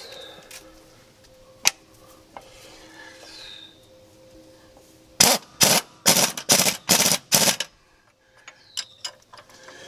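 Impact wrench hammering in about seven short bursts, one right after another, starting about halfway through, as it runs a mounting bolt tight.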